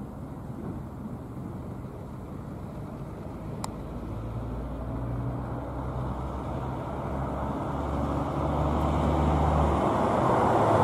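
A road vehicle approaching, the low hum of its engine growing steadily louder over the steady noise of road traffic.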